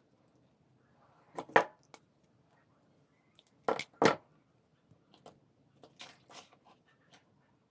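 Handling noise from small plastic and metal vape parts: short clicks and knocks as they are fiddled with and set down on a wooden workbench, with two louder clusters about one and a half and four seconds in, then a few lighter taps.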